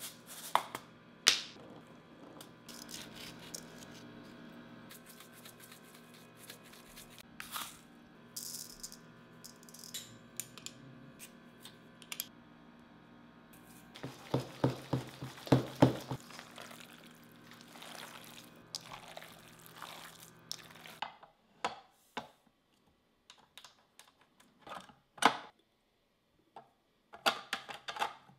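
Soft background music with sharp clicks and knocks of kitchen handling: containers, utensils and a bowl, with a dense run of louder knocks around the middle. After the music stops about three quarters of the way through, only sparse clicks and taps remain, near the end as plastic parts are fitted onto a stand-mixer meat grinder attachment.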